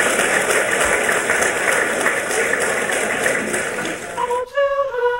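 Large audience applauding, a dense steady clapping. About four and a half seconds in it cuts off and voices start singing a held note.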